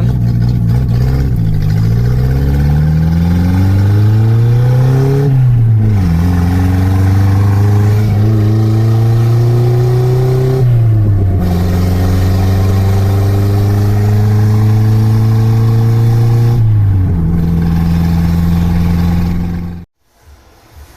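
Freshly overhauled Toyota Carina's carburetted four-cylinder engine accelerating through the gears: the engine note climbs, then drops at each of three gear changes, about 6, 11 and 17 seconds in. It cuts off suddenly near the end.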